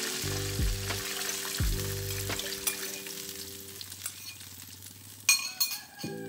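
Liquid poured into hot oil and fried shallots in a wok, sizzling strongly at first and dying down as the oil is covered. Two or three sharp clicks about five seconds in.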